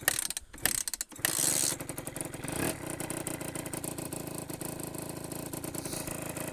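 Motorcycle engine's first start after its cylinder block was filed and some parts replaced: about a second of cranking, then it catches with a burst of revs, blips once more, and settles into a steady idle.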